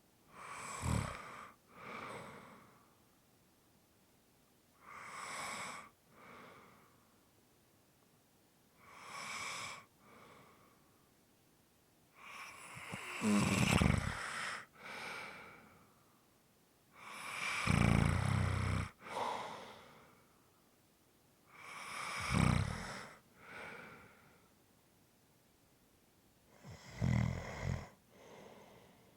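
A person snoring in sleep, about seven breaths roughly four seconds apart. Each breath is a louder snore followed by a shorter, softer one, with quiet between breaths. The snores grow deeper and louder in the middle.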